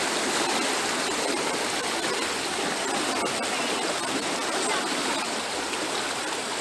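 Shallow river rushing steadily over rocks.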